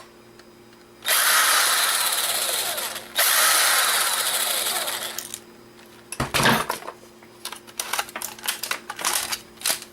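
Small electric screwdriver running in two spells of about two seconds each, backing out the camera's tiny screws, the second spell tailing off; then scattered clicks and taps of small parts being handled.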